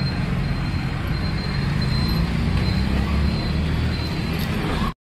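Steady rumble of a moving road vehicle, engine and road noise with most of the energy low down, cutting off suddenly near the end.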